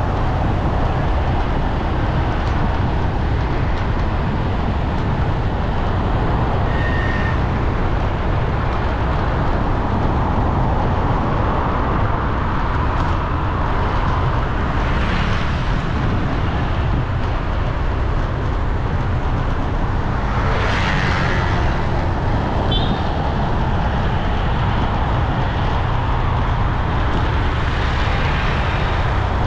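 City street traffic: a steady low rumble, with vehicles swelling past about halfway through and again around twenty seconds in. A short high tone sounds near seven seconds, and a few brief high chirps near twenty-three seconds.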